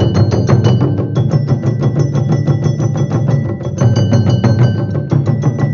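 Rapid percussion with two struck metal pipes, about eight strokes a second, their ringing tones changing pitch a few times as the player moves between the higher and the lower pipe. A heavier low drumming sits under them and is the loudest part, so the pipe strikes come through thinner than they were heard live.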